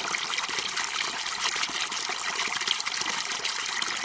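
Steady trickling, splashing liquid noise, even throughout.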